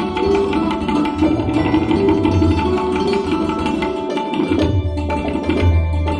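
Tabla playing a rhythm with deep bass strokes under the ringing strings of a santoor, a Hindustani classical duet. The deep drum strokes drop out briefly about four seconds in, then return.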